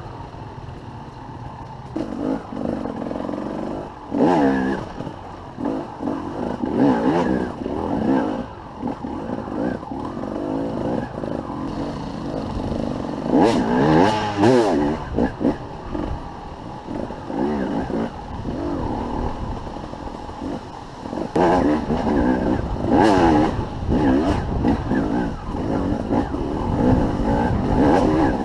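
Enduro dirt bike engine revving in repeated bursts as it picks its way over rocky single track, the pitch rising and falling with the throttle, loudest in a long rev about halfway through and again near the end.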